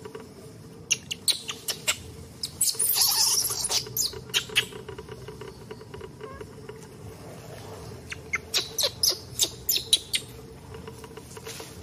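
Short, sharp, high squeaks or chirps in two bouts, one near the start and another past the middle, with a harsher, hissing cry about three seconds in.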